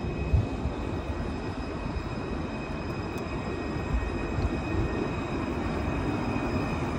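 Luas light-rail tram (an Alstom Citadis) running past close by: a steady rumble with a thin, steady high-pitched whine over it. A single thump about half a second in.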